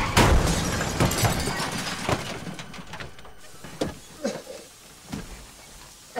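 Vehicle crash: a heavy impact as a pickup truck hits, then shattering glass and debris tinkling and settling, fading over the next second or two. Afterwards come a few scattered faint clinks.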